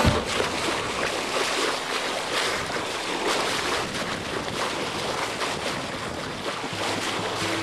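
Water rushing and splashing along a moving sailboat's hull as the bow wave churns into white foam, a continuous hiss that swells and eases.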